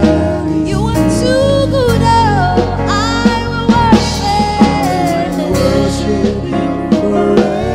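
Live gospel worship music: a woman leads the singing into a microphone over band accompaniment with a steady drum beat.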